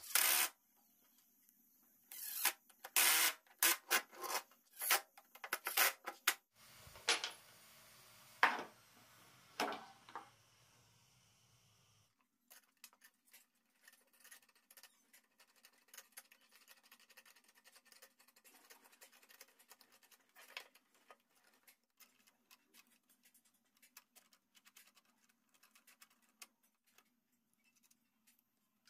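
Cordless impact driver driving screws into a metal bracket in a series of short loud bursts, then a long stretch of faint metallic clicks and scrapes as bolts, nuts and a steel-tube handle are handled and fitted.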